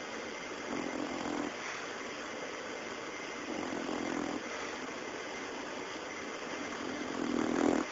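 English bulldog snoring, three snores about three seconds apart, each lasting about a second; the last, near the end, is the loudest.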